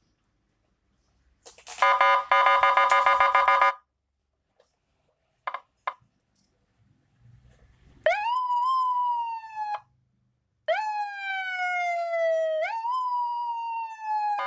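Electronic police-escort siren module sounding through a flat slim horn loudspeaker, switching between tones: a fast pulsing tone for about two seconds, a few short blips, then wailing sweeps that rise, slide down, and jump back up to slide down again.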